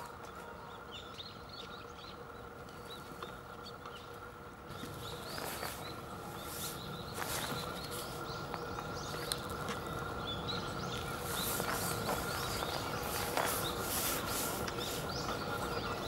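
Outdoor ambience with faint small-bird chirps over a steady low hum. Scattered clicks and crackles come more and more often from about five seconds in.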